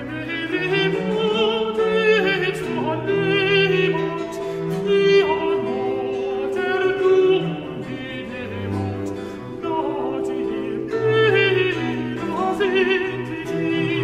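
Classical music: operatic singing with a wide vibrato over an orchestral accompaniment of long held notes.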